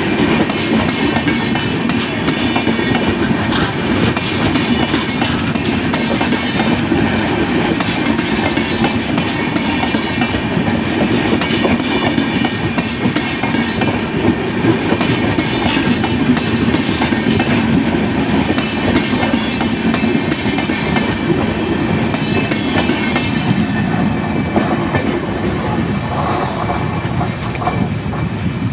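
Passenger coaches of an Indian Railways express train rolling past close by, their wheels clattering steadily over the rail joints.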